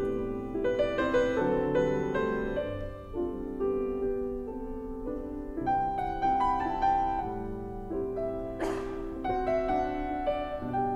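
Piano music, a run of notes and chords played on piano or keyboard. A short burst of noise cuts through it once, about three-quarters of the way in.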